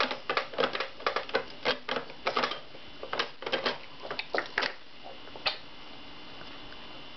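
Hard plastic baby-walker tray toys clicking and clattering as a baby's hands slap and spin them: quick, irregular taps, several a second, that stop about five seconds in.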